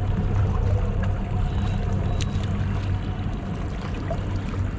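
Fishing boat's engine running steadily with a low hum, under a wash of wind and water noise.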